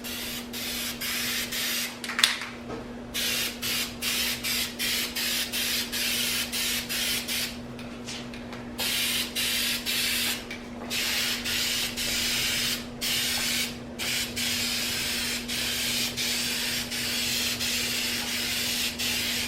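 Flat spray paint hissing out in many short bursts, with a few longer passes, as a coat goes onto a sheet-metal panel. A steady low hum runs underneath, and there is a single click about two seconds in.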